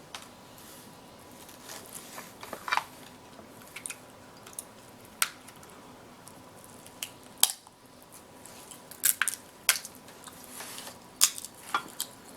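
King crab leg shells cracking and snapping as they are broken open, in a string of sharp, irregular cracks and clicks several seconds apart.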